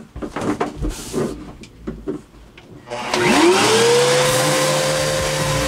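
Electric random orbital sander switched on about three seconds in, its whine rising quickly to a steady pitch, then running as it scuffs a formica surface. Before it starts there are a few light knocks of handling.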